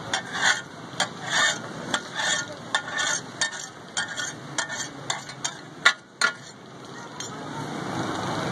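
Metal spatulas clattering and scraping on a large flat iron griddle (tawa) while fish katakut is chopped and turned, with repeated sharp clinks. About six seconds in the clinks thin out and a steady frying sizzle takes over, slowly getting louder.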